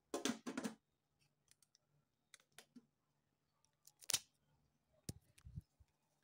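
Metal pot lid lifted with a short double clatter at the start, followed by scattered small clicks and knocks from handling, with one louder click about four seconds in.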